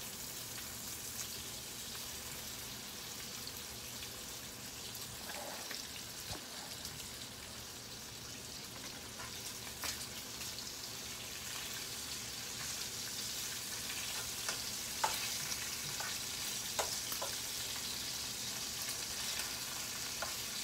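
Bacon frying in a pot: a steady sizzling hiss that grows slightly louder in the second half, with a few sharp ticks.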